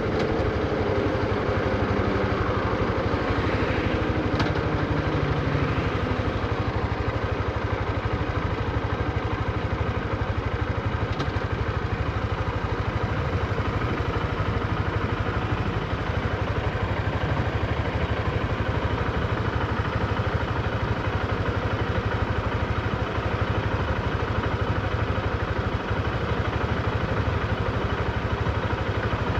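Honda CB125F's air-cooled single-cylinder 125 cc four-stroke engine running steadily at low revs, with no revving. The engine is new and still being run in.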